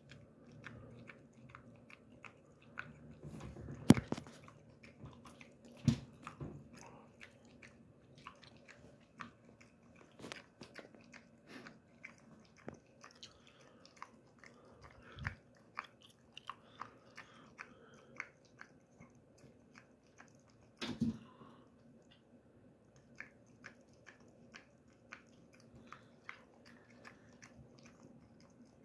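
A dog chewing a treat: an irregular run of wet crunches and jaw clicks, with a few louder crunches about four seconds, six seconds and twenty-one seconds in.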